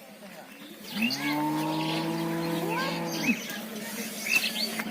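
A cow mooing: one long call starting about a second in, rising briefly and then held steady for a little over two seconds before stopping sharply. Short high bird chirps sound around it.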